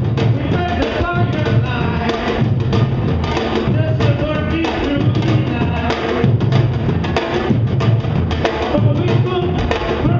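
Samba-reggae drumming by a bloco afro drum section: surdo bass drums beating about once a second under stick drums and a hand-played timbau. A man sings into a microphone over the drums.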